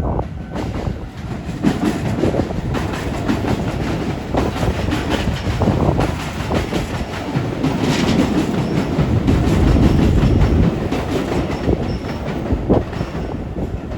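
Keisei 3200-series electric commuter train passing over a level crossing, its wheels clattering rhythmically over the rail joints, loudest about eight to ten seconds in.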